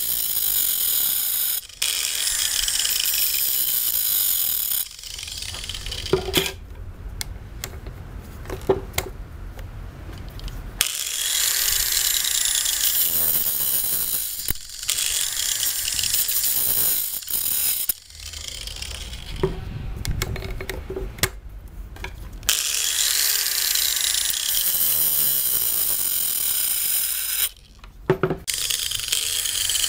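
Angle grinder disc grinding the cutter teeth of a chainsaw chain, in loud stretches of several seconds with a whine that falls and rises in pitch. Between them come quieter stretches with a low rumble and a few sharp clicks.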